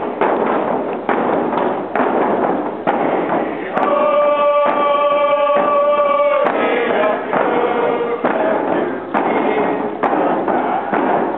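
Hand drums beaten in a steady beat while a group of voices sings a First Nations song, with one long held note from about four seconds in until past the middle.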